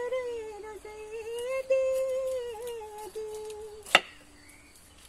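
A slow melody in long, smoothly held notes, like humming, with a single sharp knife chop into the pineapple about four seconds in.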